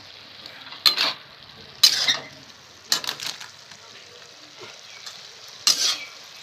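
A metal spatula stirs cauliflower, potato and capsicum in a steel kadai, scraping and clattering against the pan in four sharp strokes. Between the strokes the vegetables sizzle steadily as they fry in oil.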